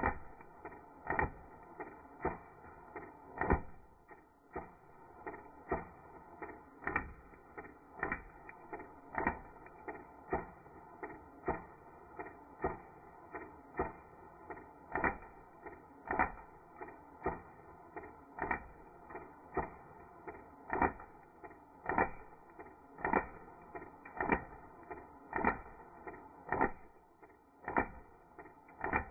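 Slowed-down slow-motion audio of an airsoft gun firing a long rapid string of shots: an even train of dull clicks, about two a second.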